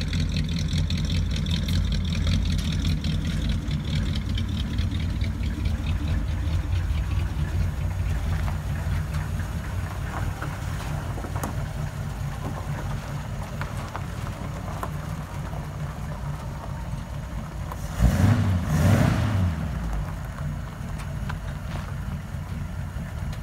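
A 1949–52 Ford flathead V8 with aluminum heads, two carburetors and a three-quarter race cam, running at a steady idle. A short, louder rush comes about eighteen seconds in.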